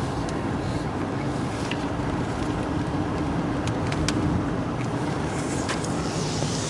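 Car engine and road noise heard from inside the cabin, a steady low rumble with a faint even hum and a few light clicks.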